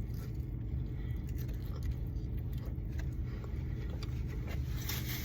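Steady low hum with faint scattered clicks and scrapes of food and takeout packaging being handled.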